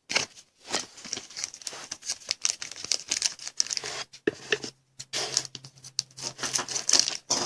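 Foil trading-card pack wrapper crinkling and tearing as a pack is opened by hand, in a rapid run of crackles.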